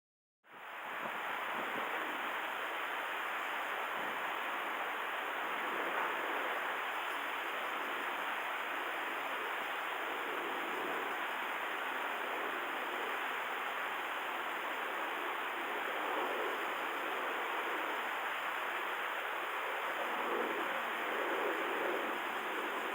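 Steady rush of water, waves washing at a river mouth, fading in about half a second in and then holding even.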